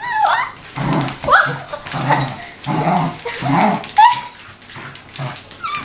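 Wire-haired fox terrier making noises in play: a string of short yelps and barks about one a second, several of them rising sharply in pitch, with lower-pitched calls in between.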